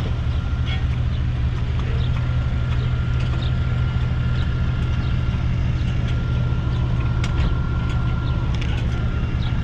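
Car engine running at a steady idle, a constant low drone with a faint steady whine over it.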